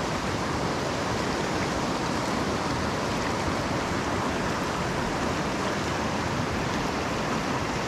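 Fast river current rushing over a shallow, rocky riffle: a steady, even rush of water.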